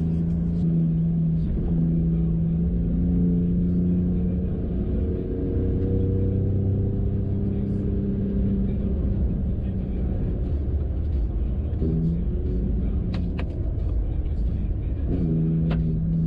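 Off-road vehicle engine running under load, a steady low rumble whose pitch shifts a little, with a few sharp clicks or knocks near the end.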